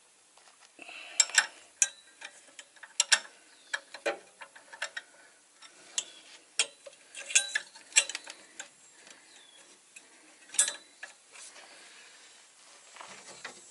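Irregular metallic clicks and clinks of a hand wrench working an 11/16 bolt loose on a truck's belt tensioner. The clicks come in uneven clusters, a few strong ones standing out.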